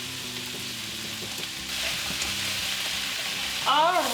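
Onions, broccoli and carrots sizzling in hot oil in a frying pan, the sizzle getting louder about two seconds in.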